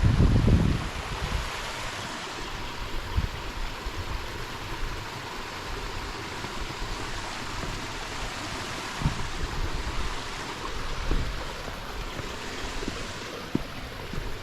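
Steady rush of running creek water, with low wind buffeting on the microphone that is strongest in the first second and a few scattered bumps later.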